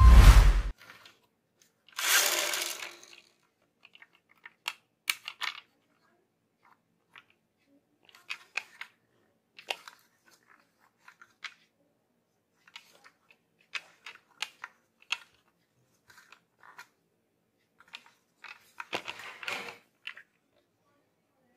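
Hands handling a plastic toy fire truck on a wooden table: scattered small clicks and taps as its yellow plastic ladder is fitted and moved. There is a longer rustle about two seconds in and another near the end, and a loud thump at the very start.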